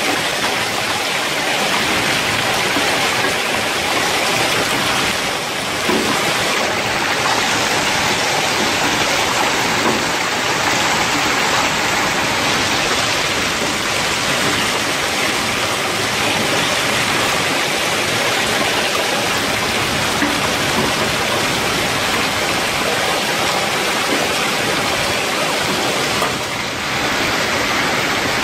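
Hailstorm: hail and heavy rain falling steadily, dipping briefly twice.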